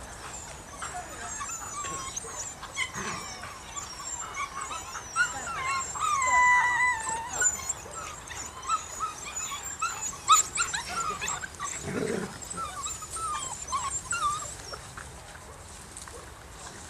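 A litter of six-week-old Belgian Malinois puppies whimpering and squealing in many short, high-pitched cries as they crowd their mother to nurse, with one longer held whine about six seconds in.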